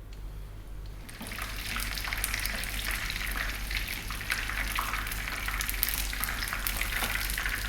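Batter-coated chicken breast strips shallow-frying in sunflower oil: a dense, crackling sizzle that comes in about a second in and then holds steady.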